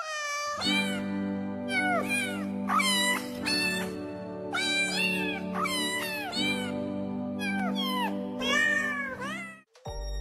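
A quick string of cat meows, some short and some drawn out, over music with steady held chords. Both stop suddenly shortly before the end.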